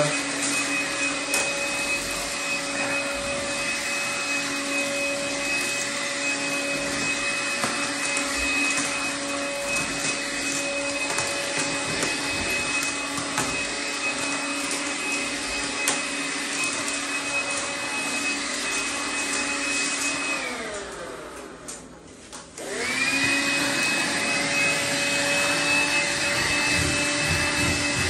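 Cordless stick vacuum running steadily with a high motor whine as it sucks up cement grit from the floor. About twenty seconds in it is switched off and winds down, then about two seconds later it is switched back on and spins up again.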